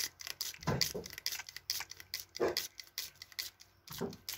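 Ear irrigation: warm water pushed through a tube into the ear canal, running out and dripping into a plastic ear basin as an irregular crackle of drips and splashes. Three short low sounds come in, about a second, two and a half and four seconds in.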